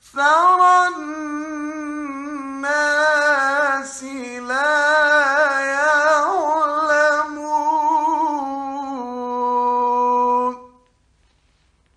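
A man reciting the Quran in a melodic, drawn-out style, holding and ornamenting long notes with wavering pitch. The phrase ends about ten and a half seconds in.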